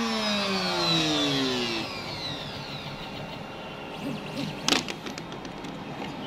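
CNC router spindle spinning down at the end of a cut, its whine falling steadily in pitch and fading out about two seconds in. A sharp knock about three quarters of the way in.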